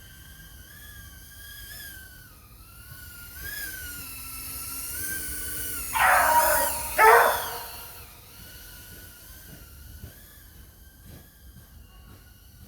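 FPV freestyle quadcopter motors and props whining, the pitch rising and falling with the throttle. A dog barks twice, loudly, about six and seven seconds in.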